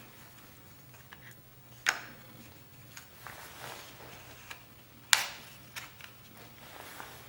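Two sharp knocks about three seconds apart, with several lighter clicks between and after them, over a faint steady hum.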